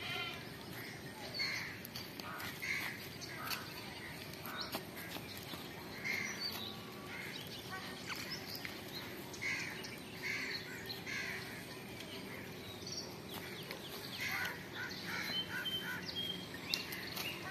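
Scattered short bird calls and chirps, some harsh and crow-like, over a steady background of outdoor rural ambience.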